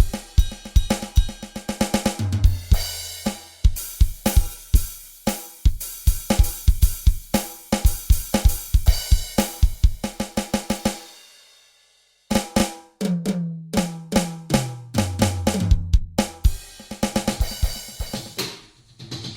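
Drum kit playing a beat with snare, bass drum, hi-hat and cymbals, which stops and rings out about 11 seconds in. After a moment of silence the playing starts again, with tom fills stepping down in pitch.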